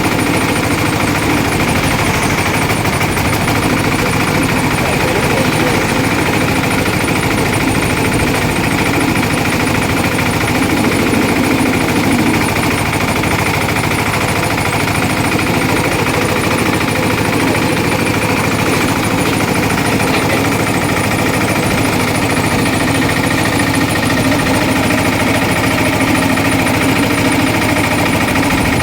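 Sugarcane juice crushing machine running steadily, its motor and rollers making a loud, even mechanical drone with a fast rattle.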